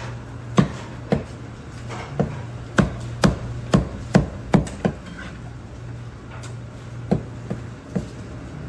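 Chinese cleaver chopping through a Cantonese roast duck on a wooden chopping block: a series of sharp, irregular chops, about a dozen, with a pause of about two seconds in the middle.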